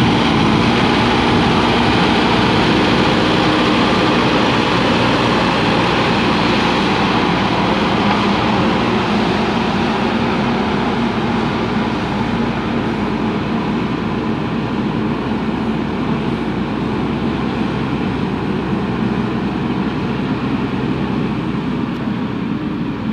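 JCB 3DX backhoe loader's four-cylinder diesel engine running steadily under load while the front bucket pushes and levels soil. It grows a little fainter in the second half as the machine moves off.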